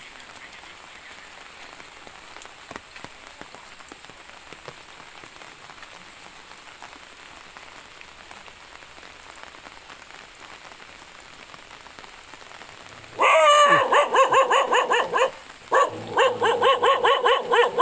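Steady light rain pattering on leaves and ground. About 13 seconds in, a dog starts barking loudly in quick, high-pitched yaps, pauses briefly, then barks again.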